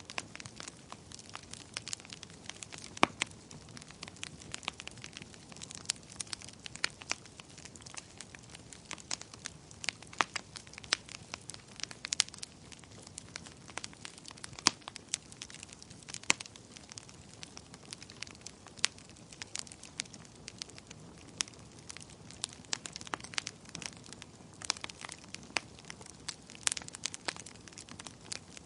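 Fire crackling: frequent, irregular sharp pops and snaps over a soft steady hiss.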